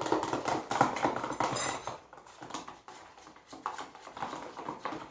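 A spoon scraping and clinking against a bowl as slime mixture is stirred: a rapid run of scrapes in the first two seconds, a lull, then more stirring near the end.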